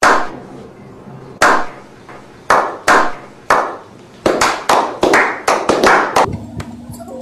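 About a dozen sharp smacks, each with a short ringing tail, spaced unevenly at first and then coming faster, two or three a second, in the second half.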